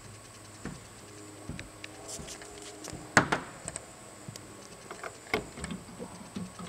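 Scattered knocks and clicks from handling a fiberglass boat's fittings, with one loud knock about three seconds in. A deck hatch lid clicks open about five seconds in.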